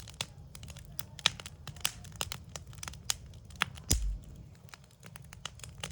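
Backyard wood fire crackling, with sharp, irregular pops and snaps from the burning wood, and a dull thump about four seconds in.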